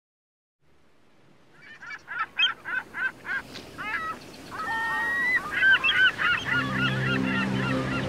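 A flock of birds calling: first a quick run of short, repeated calls, then longer calls that bend in pitch, over a steady background hiss. Music with held low notes fades in under the calls near the end.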